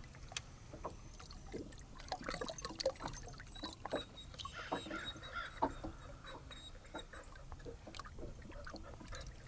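Light water trickling and splashing around a fishing boat, with many scattered small clicks and knocks over a low rumble. A faint, broken high tone comes in about the middle.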